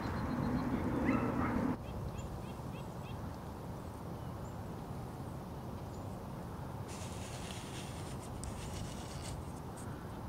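Outdoor ambience: a louder stretch that cuts off abruptly about two seconds in, then a steady low background rumble with a few faint, short, high bird chirps soon after.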